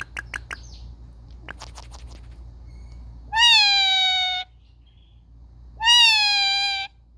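Indian ringneck parrot giving two long, loud, clear calls, each about a second long and sliding slightly down in pitch, the second a little over a second after the first. A few quick clicks sound at the start.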